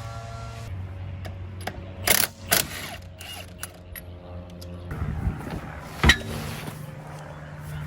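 Sharp metallic clinks and clatter, three of them louder than the rest, the loudest about six seconds in, over a steady low hum.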